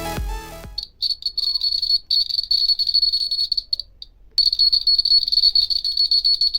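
Background music cuts out within the first second. Then the earthquake-detector alarm model's electronic buzzer sounds a single high-pitched tone that keeps cutting in and out: short beeps, then two long stretches with a short break between them, which is the alarm going off.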